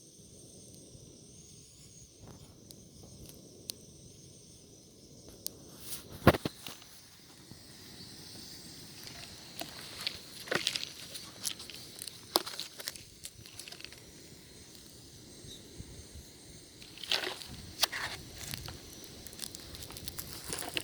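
Wood fire crackling and hissing, with scattered pops and clicks and a sharp knock about six seconds in. A faint high steady tone stops about five seconds in.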